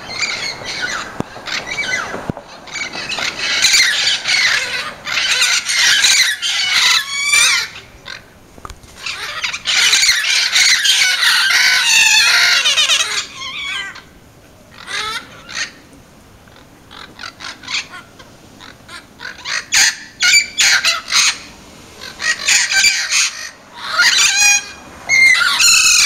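Parrots squawking and screeching in loud, harsh bouts of calling, with a quieter lull of only scattered calls about halfway through.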